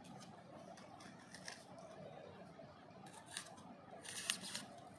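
A few short, scratchy handling sounds: an insect pin being worked into a styrofoam mounting board by gloved fingers. The sharpest comes a little past four seconds in.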